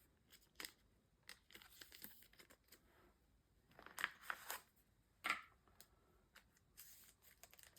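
Trading cards being handled and sorted: faint scattered rustles and small clicks, with a few louder rustles about four and five seconds in.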